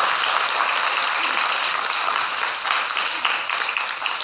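Audience applauding, many hands clapping at once, the clapping easing slightly near the end.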